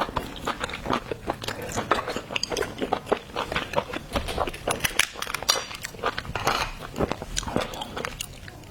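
A person chewing and biting food close to the microphone, with many quick, irregular crunches and clicks.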